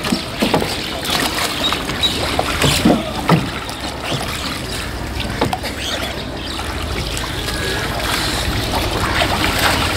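Wooden rowboat being rowed by hand: the oars knock a few times against the boat and dip into the river water, over a steady background hiss.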